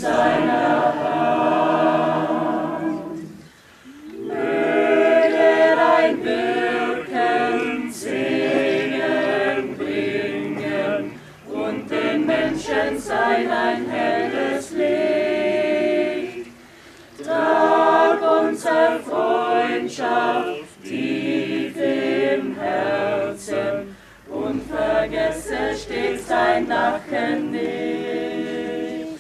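Mixed choir of men and women singing a cappella, in long phrases with short breaks between them.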